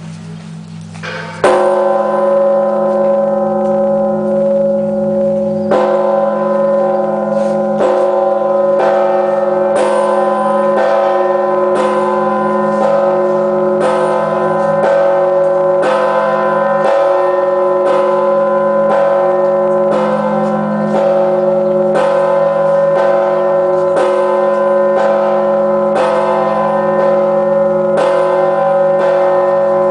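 A 7,150 kg church bell, the All Saints bell, being tolled about once a second. A loud first stroke comes about a second and a half in, then steady strokes, each renewing a long, many-toned ringing hum.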